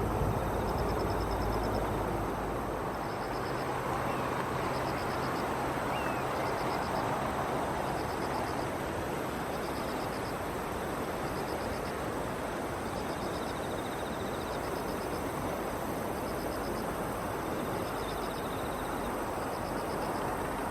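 An insect chirping outdoors in short, high trills that repeat about once a second, with a second, slightly lower trill joining now and then. Under it runs a steady rushing background noise.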